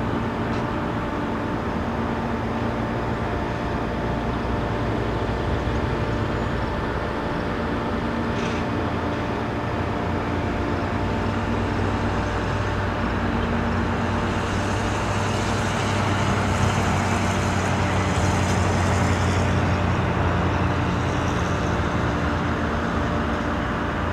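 Steady low drone of diesel engines and road traffic, with a few held engine tones running throughout; it swells with tyre hiss between about 14 and 20 seconds in as a vehicle passes on the road.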